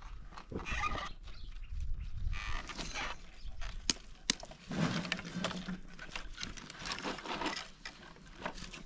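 Dry twigs and branches knocking, cracking and rustling as they are stacked onto a small wood fire, with a few sharp snaps around four seconds in. A short low call is heard about five seconds in.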